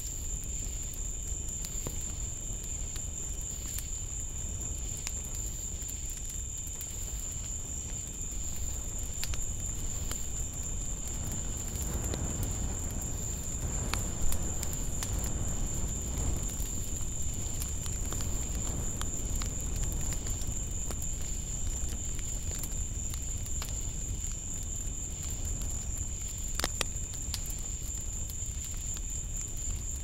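Night insects calling in a steady, unbroken high-pitched chorus, over a low rumble, with a soft swell of noise about halfway through.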